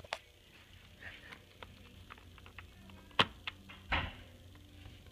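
Quiet handling clicks and a knock as a dry-erase marker is pulled from its clip on a whiteboard fixed to a wooden door: a small click near the start, a sharp click about three seconds in, then a duller knock, with faint rustling between.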